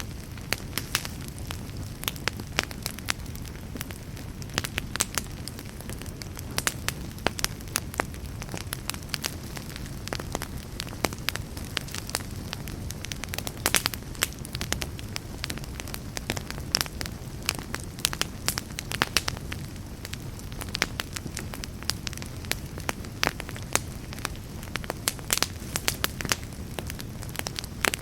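Wood fire burning in a fireplace: frequent, irregular sharp crackles and pops over a steady low rumble of the flames.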